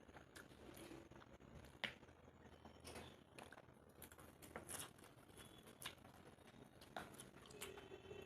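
Faint, close-miked eating sounds from a meal of Maggi noodles and fried egg: scattered soft clicks and taps at an uneven pace, with one sharper click about two seconds in.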